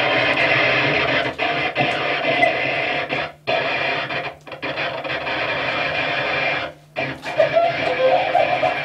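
Cello played with scraping, noise-making technique: a dense, continuous sound over a steady low drone, dropping out briefly a few times.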